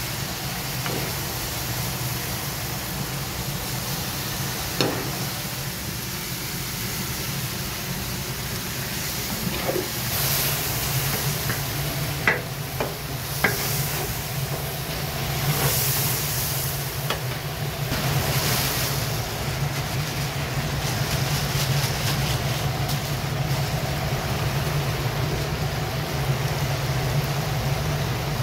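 Julienned carrots and meat frying in oil in a large cast-iron kazan, the zirvak stage of plov, sizzling steadily. The sizzle swells in hissing bursts as a metal skimmer stirs and scrapes through them, with a few sharp knocks. A low steady hum runs underneath.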